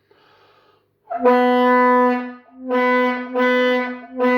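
Mouth-blown 3D-printed fog horn with a telescoping horn sounding a loud, steady low note in three long blasts, the last starting near the end. Its valve cap has just been tightened, so the air no longer blows straight through and the horn gives a note.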